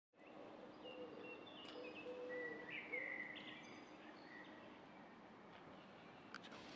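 Faint outdoor ambience with birds chirping and whistling short notes, mostly in the first few seconds, over a soft steady hum and a few short low notes.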